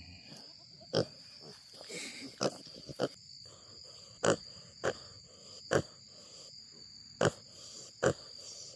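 An animal snoring while standing up as it is rubbed: eight short, sharp snores at uneven gaps, roughly one a second.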